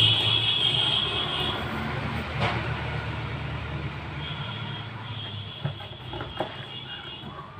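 Steady low engine rumble with a high whine over it, slowly fading.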